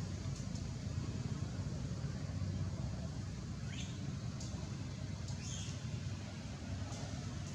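A few brief, high squeaks from a monkey, one rising sharply in pitch, over a steady low rumble.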